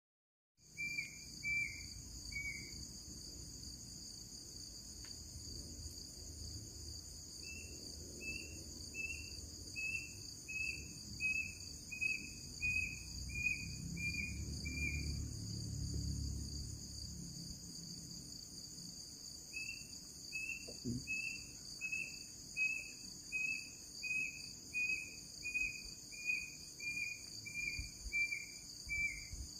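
Steady night chorus of crickets, with an unidentified call over it: long runs of short, evenly spaced high notes, about two a second. It comes in three runs: a brief one at the start, one of about eight seconds, and one of about ten seconds near the end.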